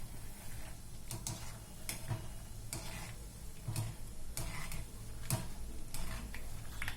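Peanuts frying in hot oil in a kadai while being stirred, giving irregular sharp clicks and taps of a ladle against the pan, about one or two a second, over faint frying.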